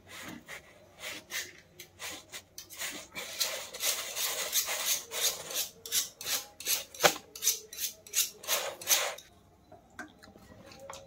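A folded cloth pressed and rubbed over a roti on a hot iron tawa: a run of quick scuffing strokes that stops about nine seconds in.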